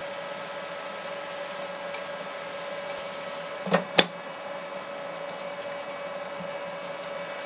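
A steady electric machine hum, with two sharp knocks a quarter second apart about halfway through.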